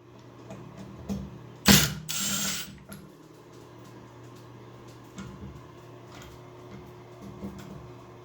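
Cordless drill/driver running as it drives the screws on a Price Pfister shower valve, with a steady motor hum and many faint ticks and a louder clatter about two seconds in. The screws are being driven a bit too tight with the power tool.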